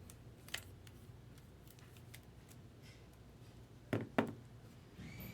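Trading cards and their plastic holders being handled on a table: faint scattered ticks and small clicks, a sharper click about half a second in, and two sharp clicks close together about four seconds in.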